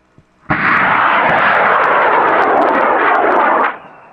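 High-power rocket motor igniting and burning at liftoff: a sudden loud roar with crackling that runs about three seconds and cuts off abruptly at burnout, leaving a faint fading rumble.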